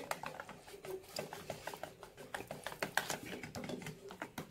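Wire whisk beating wheat-flour dosa batter in a plastic bowl: a quick, uneven run of light clicks and taps as the wires strike the bowl and churn the wet batter.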